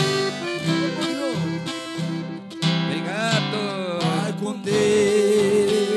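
Instrumental break in a sertanejo ballad, led by strummed and picked acoustic guitar.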